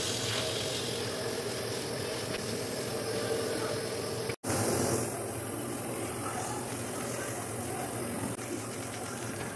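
Eggs sizzling in a hot frying pan as they are stirred and scrambled with a spatula, a steady hiss over a low hum, with a brief break about four seconds in.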